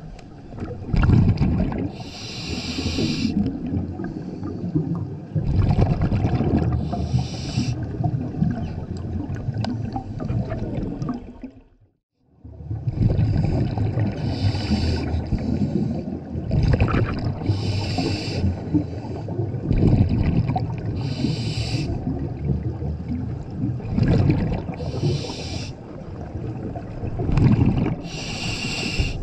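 Scuba diver breathing through a regulator underwater: a hiss on each inhale, then a rumble of exhaled bubbles, repeating every few seconds. The sound drops out briefly near the middle.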